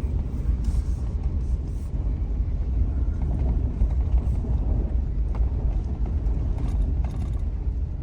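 A car driving slowly over an icy, partly snow-covered road: a steady low rumble of engine and tyres, with scattered light clicks.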